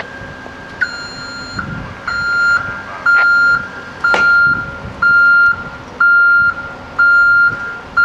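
Backup alarm of a hi-rail pickup truck beeping about once a second as it reverses along the track, each beep a steady high tone about half a second long. A single sharp click sounds about four seconds in.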